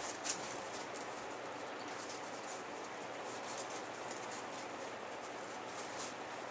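Soft rustling and brushing of sponge-foam pieces being handled and pressed onto a foam puppet head, with a sharper tick just after the start, over a steady hiss.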